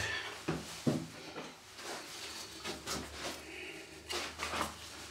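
Scattered light clicks and knocks of a small plastic charger case and a screwdriver being handled on a workbench as the case is prised open, over a low steady hum.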